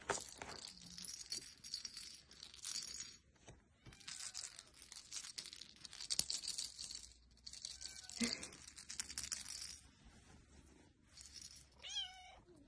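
Intermittent scratchy rustling as Bengal cats move about on a fleece blanket, in several stretches of a second or more. Near the end a short wavering meow from a Bengal kitten.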